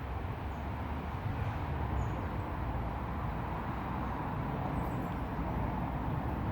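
Crumlin River water rushing steadily through the glen: an even, unbroken noise of flowing water, with a few faint high chirps above it.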